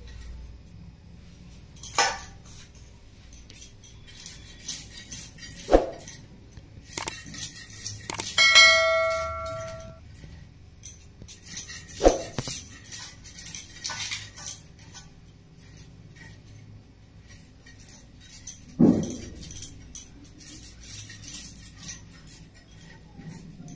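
Fish scales being scraped off against the blade of a boti, a fixed curved Bengali fish-cutting blade, in quick rasping strokes. A few dull knocks come along the way, and about eight seconds in there is a short metallic ring lasting a second or so.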